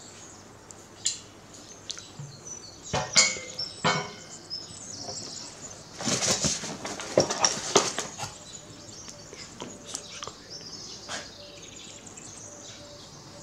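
Handling noise of microphone-kit parts and packaging: scattered clicks and knocks, then a burst of rustling and scraping from about six to eight seconds in as a hand digs into the box's foam insert, followed by lighter clicks of a plastic shock mount being handled.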